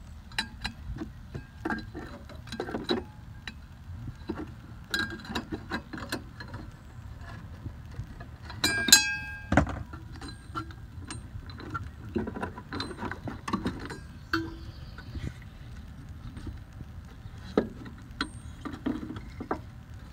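Scattered light clicks and knocks over a steady low rumble, with one louder ringing metallic clink about nine seconds in.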